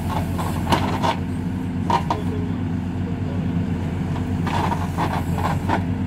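Hidromek 102B backhoe loader's diesel engine running steadily while its backhoe arm works the soil, with a few short knocks.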